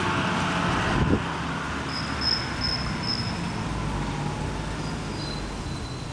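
A vehicle engine running steadily in the background, with a run of four short high chirps about two seconds in and a fainter high tone near the end.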